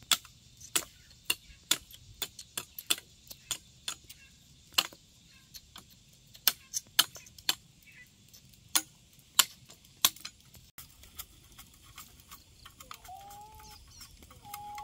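A run of sharp, irregular clicks and snaps, several a second at times, that stops about ten seconds in; near the end a pitched call in short held notes begins.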